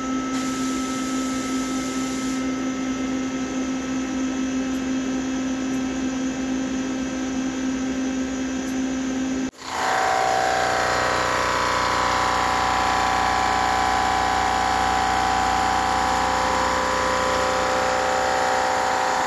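CNC milling machine running, first with a steady whine. After an abrupt cut about nine and a half seconds in, it is milling a steel sprocket under flood coolant: a louder hiss of cutting and spray, with a tone that slowly dips and then rises again.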